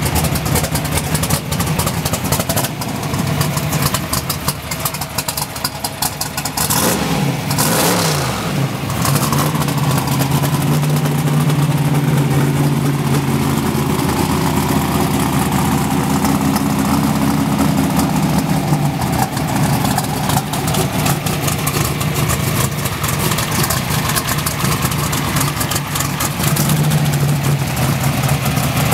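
Alcohol-injected twin-turbo Pro Mod drag race engine running in warm-up, idling with a crackling exhaust. A short rev about seven seconds in falls back to a steady idle.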